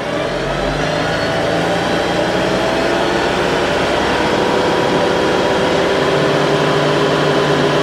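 Tractor engine being throttled up to PTO speed, about 2200 RPM. It grows louder over the first second or so, then runs steadily as its pitch creeps slowly upward.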